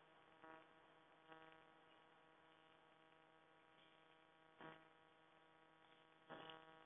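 Near silence: a faint steady hum, with a few faint short sounds.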